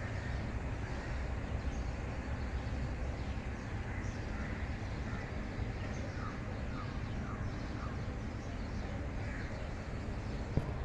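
Steady low hum of a city at night, with birds calling over it, including a run of four short calls about six to seven seconds in.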